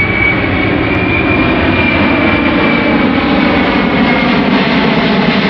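Boeing C-17 Globemaster III's four turbofan engines, loud and steady as it flies past low overhead, with a high whine that sinks slightly in pitch.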